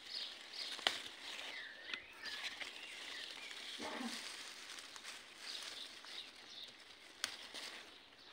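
Strawberry leaves and stems rustling as a hand searches through the plants, with a few sharp clicks, over outdoor ambience with a few short chirps.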